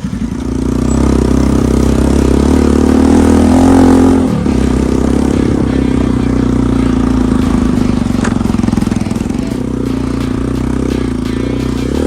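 Motorcycle engine pulling away and accelerating, its pitch rising for about four seconds. It breaks off briefly for a gear change, then runs steadily.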